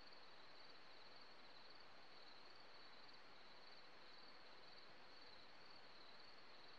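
Near silence: a faint steady hiss, with a faint high wavering trill of insects, like distant crickets.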